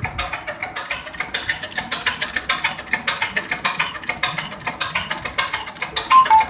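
Four-cylinder in-line diesel injection pump running on a test bench, giving a rapid, even mechanical clicking. Two short beeps sound near the end.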